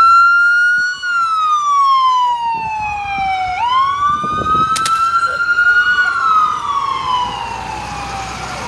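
Fire department vehicle's wail siren, its pitch slowly rising and falling in about five-second cycles. A sharp click sounds about five seconds in.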